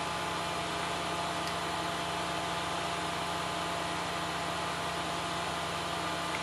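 Steady background hum and hiss, even throughout, with no distinct event standing out.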